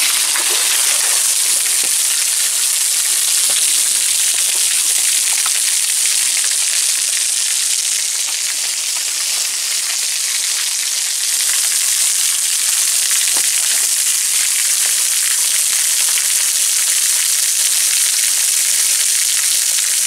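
Thin waterfall streaming and dripping off a rock overhang, the water splashing steadily into a shallow pool, with scattered single drips audible; a little quieter for a few seconds in the middle.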